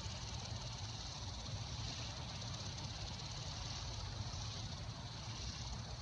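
Outdoor ambience: wind rumbling on the microphone under a steady high hiss.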